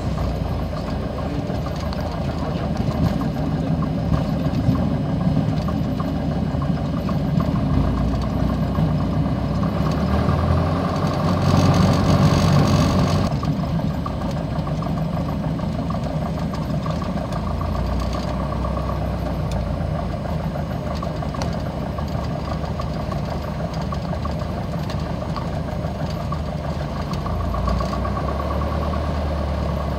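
Piper PA-28's single piston engine running steadily, heard inside the cockpit, with a louder stretch of rushing noise from about ten to thirteen seconds in.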